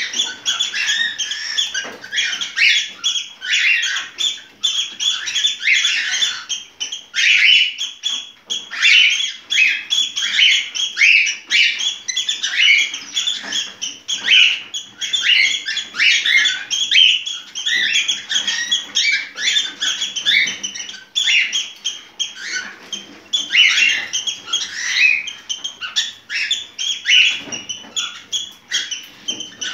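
Cockatiel calling with a rapid, continuous run of short chirps and whistles: the calls of a bird in breeding condition (in heat).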